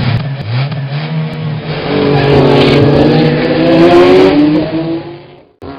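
Race car engine revving, its pitch climbing as it speeds up, then fading and cutting off near the end.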